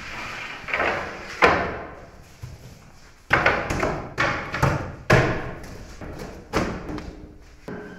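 Long wooden bread peel knocking and scraping against the mouth and floor of a brick bread oven as loaves are loaded: a run of about nine sudden wooden thumps and scrapes. A steady high tone comes in near the end.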